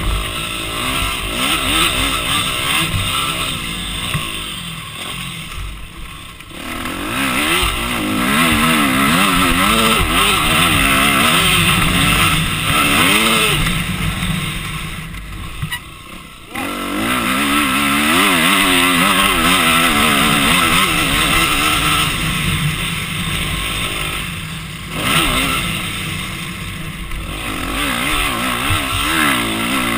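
Yamaha YFZ450R racing quad's single-cylinder engine heard from onboard, revving up and down in pitch as the throttle is worked. The engine note drops off briefly three times, about six, sixteen and twenty-five seconds in, as the throttle is closed, then picks up again.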